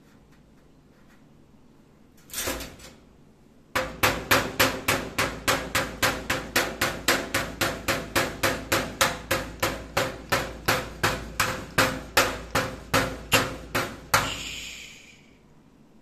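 Rapid, even knocking, about three sharp knocks a second for some ten seconds, from an African grey parrot tapping its beak against its cage. A single softer knock comes shortly before the run, and a brief rustle ends it.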